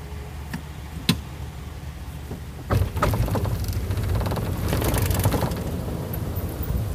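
Golf cart riding along with a steady low rumble. A sharp click comes about a second in, and from nearly three seconds in the rumble turns louder and rougher.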